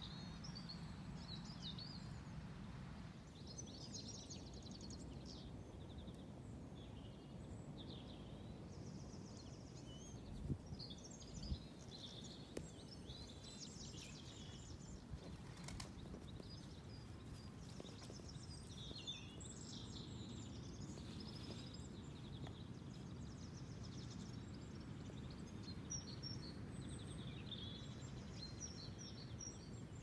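Small birds singing, many short chirps and trills, over a steady low background rumble. Two soft thumps come about ten and eleven seconds in.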